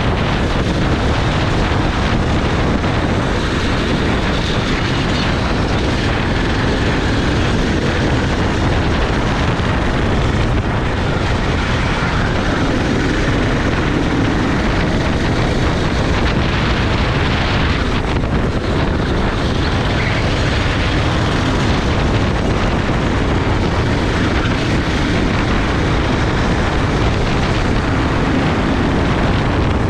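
Racing kart engine running at speed: a loud, steady noise.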